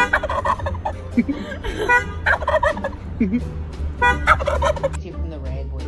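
Wild turkey gobbling three times, about two seconds apart, each gobble a quick rattling burst.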